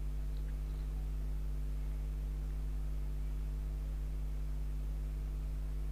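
Steady low electrical hum with a faint hiss, unchanging throughout, with no speech.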